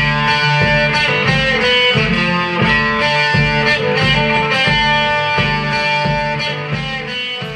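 Music playing through Philips MCD709 stereo speakers driven by a tube amplifier: a guitar-led track over an evenly pulsing bass beat, fading out near the end.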